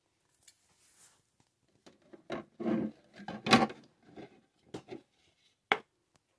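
Plastic pet food bowls being handled and pulled apart from a stack: an irregular run of knocks, scrapes and clatter, loudest about halfway through, with one sharp knock near the end.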